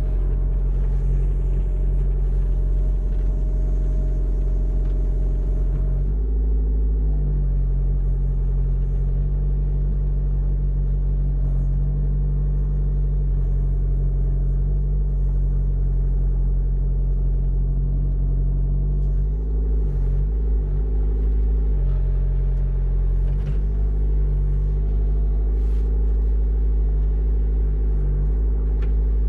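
Mini excavator's engine running steadily. Its pitch shifts about six seconds in and wavers unevenly for a couple of seconds around the twenty-second mark.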